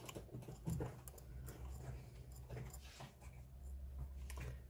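Faint scraping and a few light clicks of metal tweezers picking hardened glue off a burnt resistor on a power supply circuit board, over a low steady hum.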